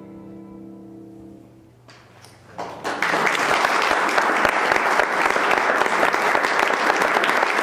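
The last held chord of a piano, violin and cello trio dies away over the first couple of seconds. After a brief pause, audience applause breaks out about three seconds in and carries on steadily.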